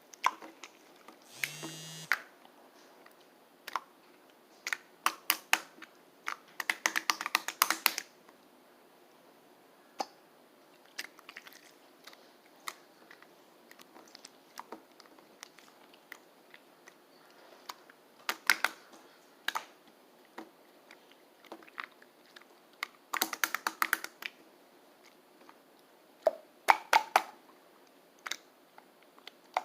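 Slime being pressed and worked by hand, giving clusters of rapid wet clicks and pops with quieter single clicks between them.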